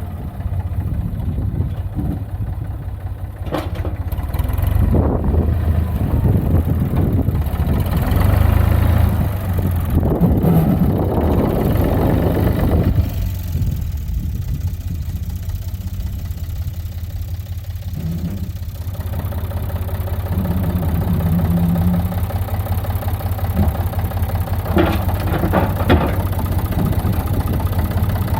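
Farm tractor's diesel engine running steadily with a deep, continuous rumble, its load rising and falling, with a few sharp knocks from the machinery.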